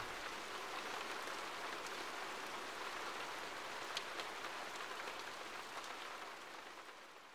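Rain falling: an even hiss with a few scattered drop ticks, fading out near the end.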